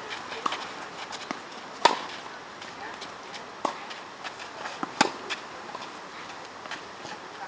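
Sharp pops of a tennis ball being hit and bouncing on a clay court, a handful of separate strikes with the loudest about two seconds in and another about five seconds in.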